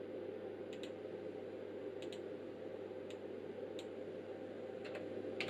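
Front-panel buttons on bench electronic test equipment being pressed, about six short clicks, several in quick pairs, with the loudest near the end, as the test frequency is set back to 500 kHz. A steady low hum runs underneath.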